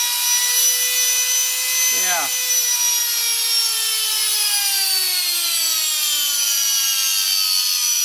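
Canister vacuum cleaner motor running with no load, a steady high whine whose pitch slowly falls from about three seconds in as the motor slows. It runs normally after being submerged in water.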